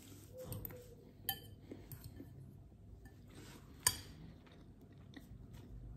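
Eating sounds: quiet chewing and a metal fork clinking against a glass bowl, with a small clink just after one second in and a sharper one near four seconds.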